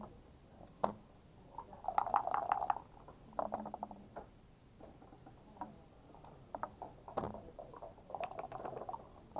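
Backgammon dice rattling in a cup and tumbling onto the board in two quick clattering runs, with sharp single knocks of checkers set down and the game clock's button being pressed.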